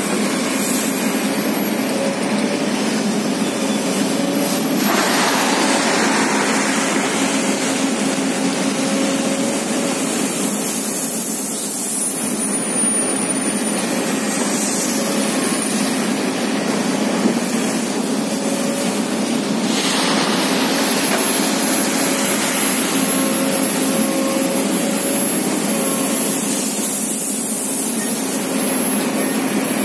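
Crawler excavator's diesel engine running steadily at close range, a constant hum under a broad machine noise that swells briefly a few times.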